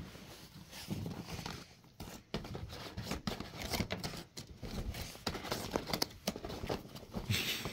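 A cat pawing and scrabbling at a nylon pop-up play tunnel: irregular rustling of the fabric with scattered small scratches and taps.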